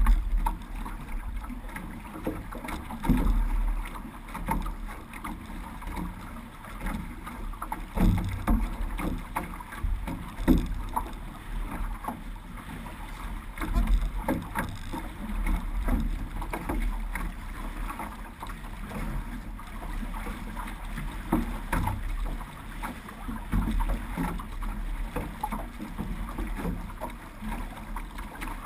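Six-person outrigger canoe under paddle: paddle blades catching and splashing in the water in a repeating stroke rhythm, with water washing along the hull and a low wind rumble on the microphone.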